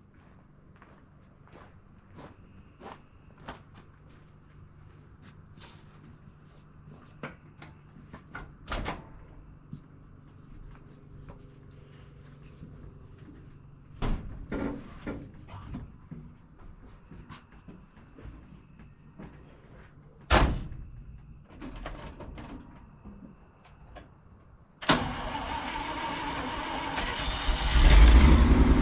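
Crickets or other insects chirping steadily, with scattered clicks and knocks of equipment being handled. About 25 s in, the Echo PB-400E backpack blower's two-stroke engine starts abruptly and runs, getting louder near the end.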